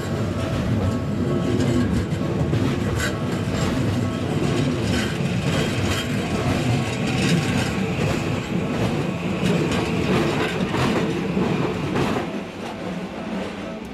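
Toei Asakusa Line 5500 series electric train passing close by: a loud, steady rumble of wheels on rail with irregular clacks. About twelve seconds in the sound drops and thins out.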